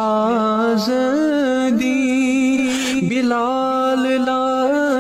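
A man singing a devotional Ramadan kalam in long, held notes that waver and slide between pitches.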